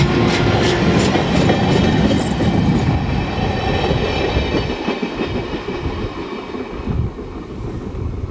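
Amtrak passenger cars, Superliner cars and a trailing observation car, rolling past close by: steel wheels clicking over rail joints about three times a second. The clatter fades to a lower rumble as the last car goes by.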